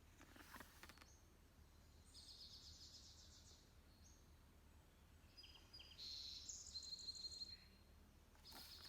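Faint birdsong: a few short, high, buzzy trills, one about two seconds in and a couple more past the middle, over a low steady hum.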